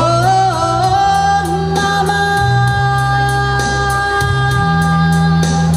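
A woman singing into a microphone over backing music with a steady drum beat. She slides up into one long held note near the start and sustains it almost to the end, with a slight waver at first.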